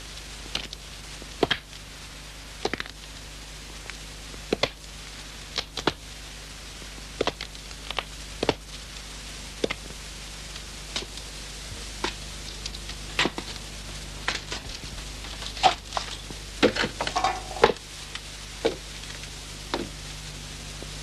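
Irregular sharp clicks and knocks, about one a second and more crowded about three-quarters of the way through, over a steady low hum.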